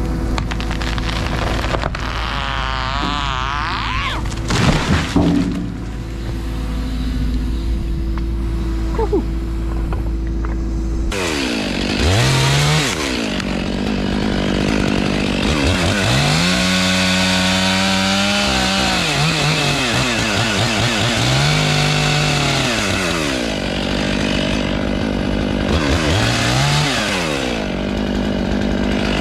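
Excavator engine running steadily, with a few loud sharp knocks about four to five seconds in. From about eleven seconds on, a Stihl chainsaw revving up and dropping back again and again, with a longer held rev in the middle.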